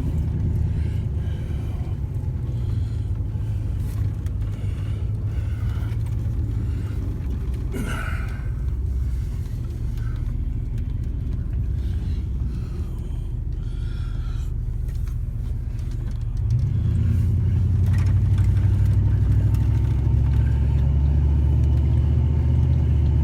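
Vehicle engine and road rumble heard from inside the cab while driving, a steady low drone that rises in pitch and grows louder about two-thirds of the way through as the vehicle speeds up.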